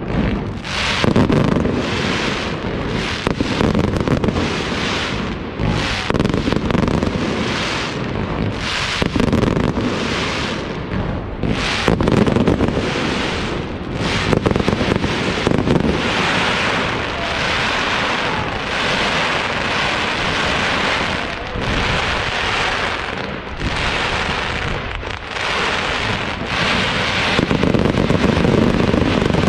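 Pyrotechnic display of aerial shells and ground fountains firing in a dense, continuous barrage of bangs and crackle, a little louder near the end.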